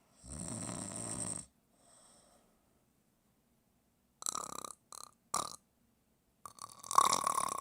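A person snoring: one loud, buzzing snore of about a second near the start, then a faint breath. In the second half come several short, sharp noisy sounds, the loudest near the end.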